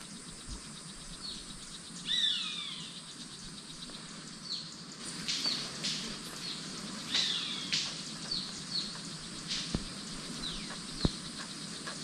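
Golden-collared manakin wing snaps: several sharp, dry snaps a second or two apart, made by the bird's wings rather than its voice. Around them, high chirps and insects keep up steadily, and falling whistled bird calls come about two seconds in and again around seven seconds.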